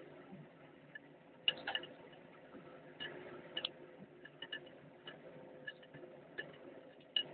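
A steel wrench clicking and clinking on the bolts of a Doosan excavator diesel's cylinder head: about nine faint, sharp metal clicks at irregular intervals.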